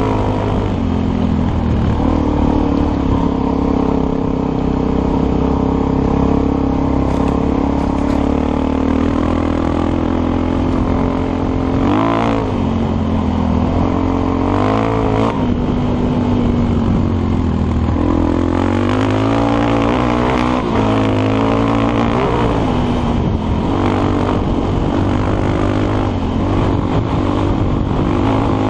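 Suzuki DRZ400SM single-cylinder motorcycle engine running under way on a dirt road, its note rising and falling with the throttle several times, most clearly about twelve and fifteen seconds in.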